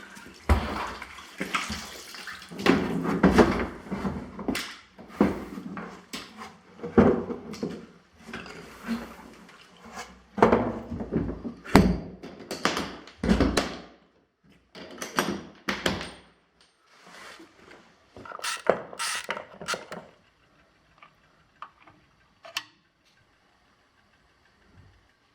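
Irregular knocks, thuds and rustling clatter of things being handled, close together at first and thinning out to a few scattered clicks near the end.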